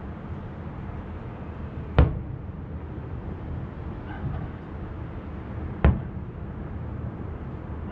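Two distant aerial firework shells bursting, each a sharp bang with a short echoing tail, about four seconds apart, over steady low background noise.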